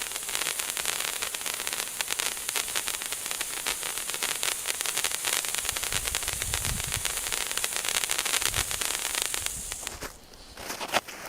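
Handheld firework fountain burning, a steady hissing crackle of sparks that cuts off about ten seconds in. A few sharp knocks follow near the end.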